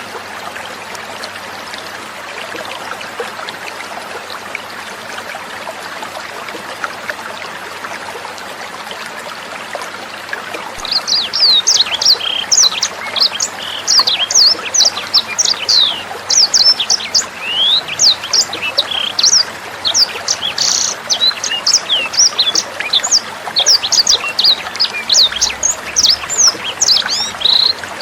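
Trickling water runs steadily; about 11 seconds in, a sanger bird breaks into song, a fast, dense run of high chirps and quick sweeping whistles that continues without a break.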